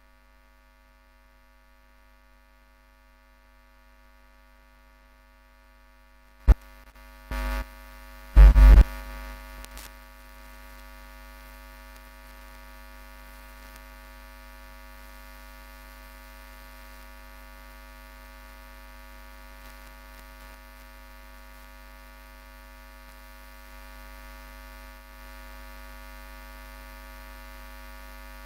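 Steady electrical mains hum, a buzz of many tones. About six and a half seconds in comes a sharp click, then a thump and two loud thumps a second later, and after them the hum is a little louder.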